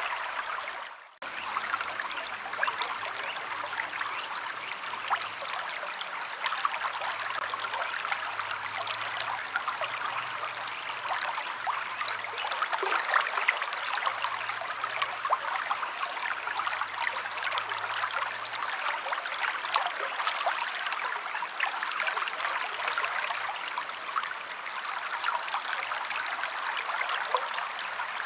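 A river stream flowing steadily, water rushing and splashing over rocks with many small trickles and spatters. The sound cuts out briefly about a second in, then resumes.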